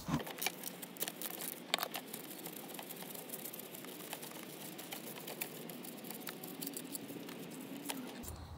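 Scattered light clicks and rattles of hand tools and metal parts as the two mounting bolts of a two-stroke lawn mower's ignition coil are undone.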